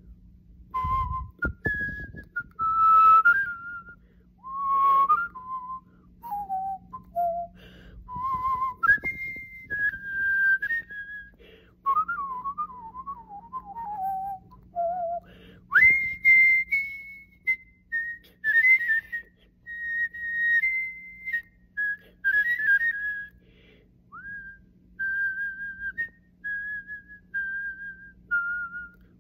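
A man pucker-whistling a melody through pursed lips, in phrases with short gaps between them. The tune moves up and down with quick ornamental turns, a trilled descending run about twelve seconds in, and a long high held note around sixteen seconds in.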